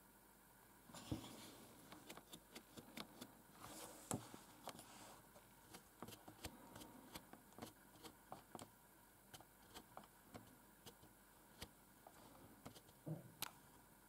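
The tall numpad Enter key of a Cherry G83-6105 membrane keyboard is pressed and released over and over, making dozens of short, irregular clicks. The loudest clicks come about a second in, about four seconds in and near the end.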